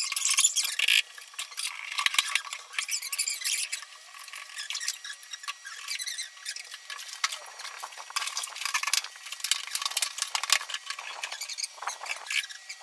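Busy, high-pitched clatter of flat-pack wardrobe assembly: many small clicks, scrapes and squeaks from panels, screws and tools being handled.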